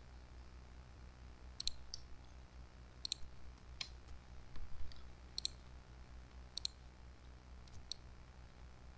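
Computer mouse buttons clicking about seven times at irregular intervals, some as quick press-and-release pairs, while a line is drawn and copied in 3ds Max. A low steady hum runs underneath.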